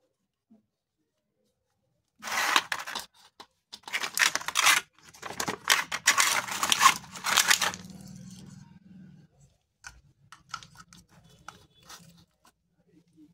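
Clear plastic packaging crinkling and tearing in several loud bursts, followed by small clicks of plastic parts being handled, with a faint low hum underneath.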